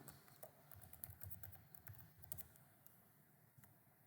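Faint computer keyboard keystrokes and clicks, irregular and scattered, growing sparser in the last second or so.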